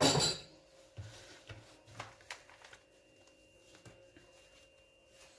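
A ceramic canister set down on a stone countertop with one sharp clunk, followed by a few faint knocks as a hand blender and its cord are handled on the counter.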